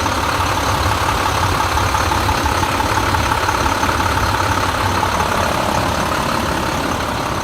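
International CXT pickup's DT466 inline-six diesel engine idling steadily.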